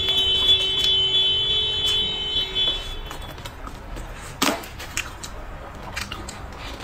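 A steady, level high tone for about the first three seconds, from an unseen source. Then close-up eating sounds: chewing braised pork ribs, with a few sharp crunches or clicks, the loudest about four and a half seconds in.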